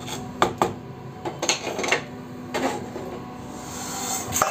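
Wooden spatula knocking and scraping against a metal pan of dry-roasted split green gram: a few separate sharp clacks, with a hiss building near the end.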